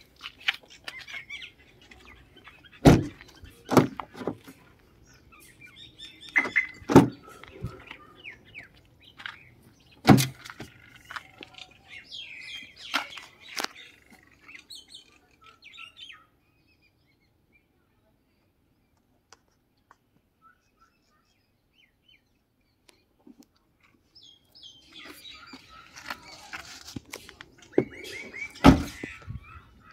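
Birds chirping, with a handful of sharp knocks and thunks from the car's doors and interior being handled. The knocks are the loudest sounds: a few in the first ten seconds and one near the end. Everything drops out for several seconds past the middle.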